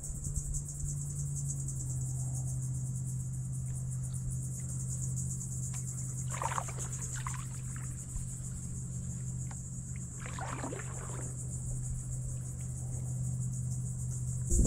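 Insects buzzing steadily from the mangroves in a high, even drone, over a steady low hum. Twice, around six and ten seconds in, comes a brief watery swish of a paddle stroke.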